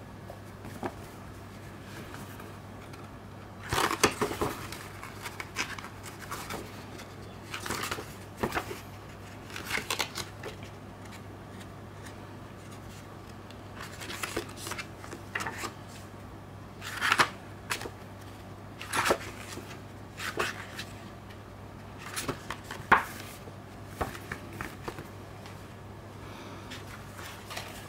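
Pages of a thin paper booklet being turned by gloved hands: a series of short papery rustles and flaps, spaced a second or few apart, over a faint steady low hum.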